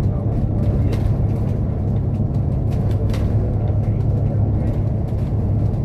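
Steady low rumble of a vehicle travelling at highway speed, heard from inside: engine and road noise, with a few faint clicks.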